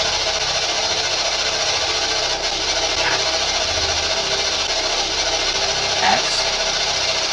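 Steady hiss of static, with a faint, brief voice-like sound about six seconds in. The investigators take it for a spirit answering "Ax".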